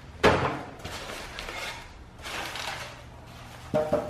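An empty cardboard gift box lands on the floor with a loud thud about a quarter second in. Rustling and scraping follow as a plastic-wrapped item is pulled out of its white packaging.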